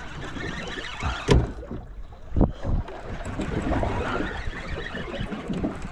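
Wind and water noise around a small fishing boat, with a sharp knock about a second in and a duller thump about a second after it.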